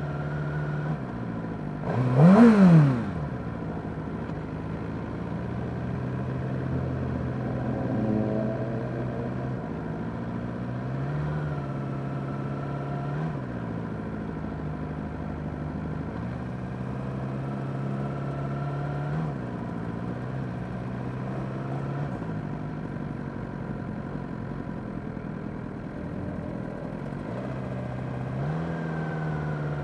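Suzuki GSX-R600 inline-four engine running at a steady road pace, its note rising and falling gently with the throttle. About two seconds in, a loud, brief engine rev sweeps sharply up and back down in pitch.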